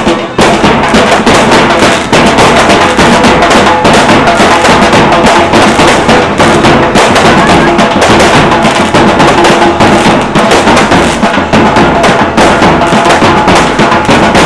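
Loud music with a heavy, steady drumbeat.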